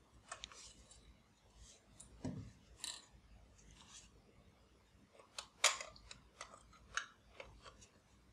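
Hard plastic toy bubble gun being handled, with scattered faint clicks and taps as its battery compartment cover is worked open; the sharpest click comes a little past the middle.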